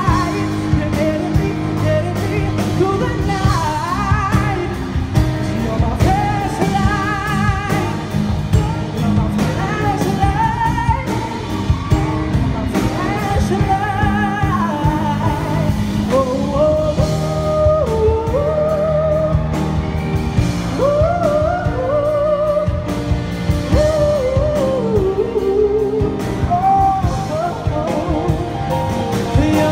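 Male singer singing live into a microphone, holding notes with vibrato and sliding through vocal runs, backed by a live band with electric guitar through a PA system.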